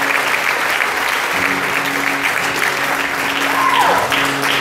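Audience applauding, with one falling whistle about three and a half seconds in. Sustained acoustic guitar notes ring underneath from about a second in.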